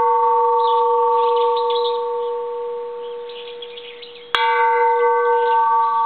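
Antique bronze Japanese Buddhist temple bell ringing after a strike, one clear tone with a few higher overtones slowly dying away. About four seconds in it is struck again and rings on.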